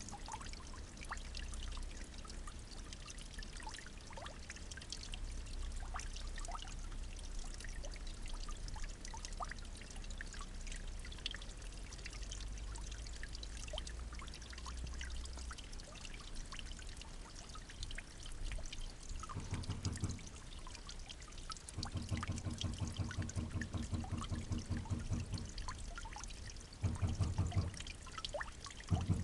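Water trickling steadily, with small scattered drips and splashes. In the last third a low buzzing drone comes and goes in several stretches, loudest near the end.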